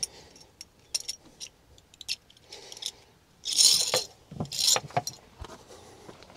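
A rope being handled and pulled through a pulley, with scattered light clicks of the hardware. There are two short rustling runs of rope sliding, about three and a half and four and a half seconds in.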